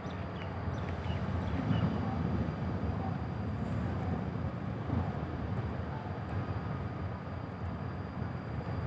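Steady low rumble of a large ship's engines running while it waits to leave the berth. A few short, high, falling chirps sound in the first two seconds.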